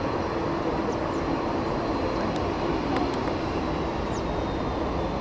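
Steady distant rumble of the Airbus A380-800's jet engines, with a thin high whine running through it. A few short high chirps sound over it.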